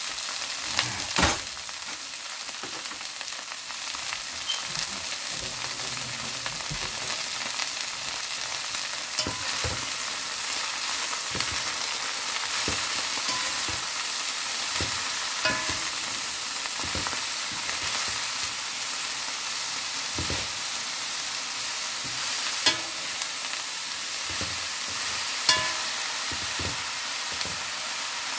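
Chopped mustard callaloo greens sizzling in hot oil in a pot as handfuls of greens are added, with a few sharp clicks now and then.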